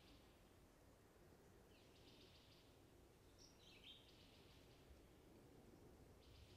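Near silence in woodland with a faint songbird singing short, high phrases, three of them about two seconds apart.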